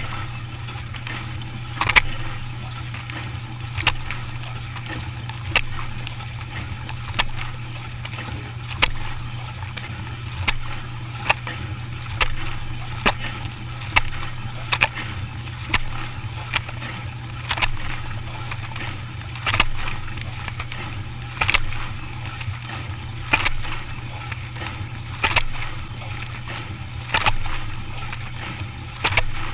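Dishwasher running through a wash: a steady low motor hum under splashing water, with sharp knocks about once a second.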